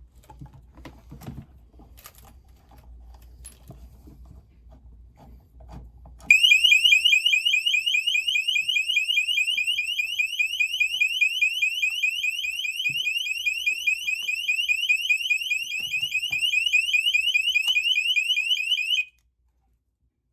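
Alarm Lock PG21S door alarm unit going off when its tamper screw is backed out: a loud, shrill, rapidly repeating rising-chirp warble that starts suddenly about six seconds in and cuts off abruptly near the end. It is triggered by the tamper switch, and sounds because the battery is still alive. Faint clicks of screw handling come before it.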